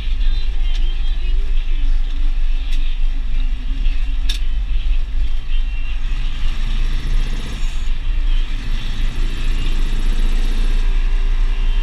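Deutz DX 4.70 tractor's air-cooled four-cylinder diesel running steadily as it drives along the road towing a slurry tanker, heard from inside the cab. There is a sharp click about four seconds in.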